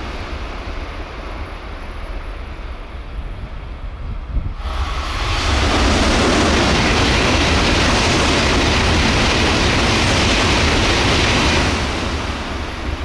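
Shinkansen bullet train passing non-stop through a station at high speed. A loud rushing noise comes in suddenly about four and a half seconds in, holds steady for about seven seconds and falls away near the end, with a fainter rushing sound before it.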